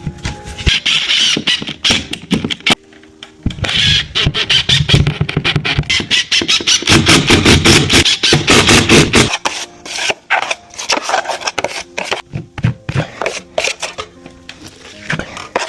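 Background music with a fast, dense beat.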